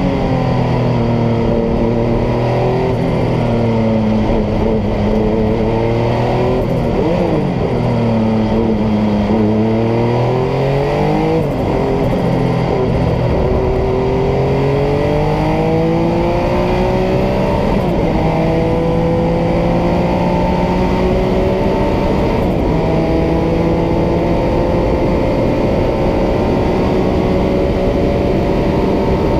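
Porsche 962C race car's twin-turbocharged flat-six, heard from inside the cockpit at racing speed. Its pitch dips and rises several times through corners in the first half and drops sharply about the middle. It then climbs slowly for over fifteen seconds in a long full-throttle run, broken twice by brief dips near gear changes.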